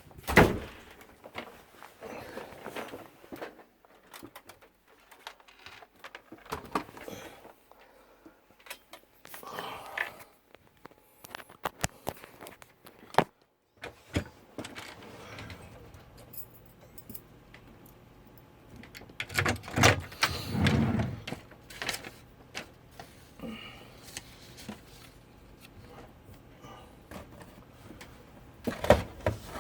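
Scattered clicks, knocks and short rattles of objects being handled and set down, with a louder cluster of knocks a little past the middle.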